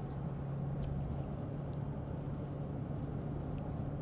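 Car cabin noise while driving slowly: a steady low engine hum with road rumble beneath it.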